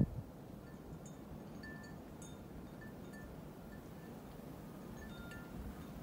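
Wind chimes tinkling now and then, a few short notes at a time at a handful of fixed pitches, over a low steady rumble of wind.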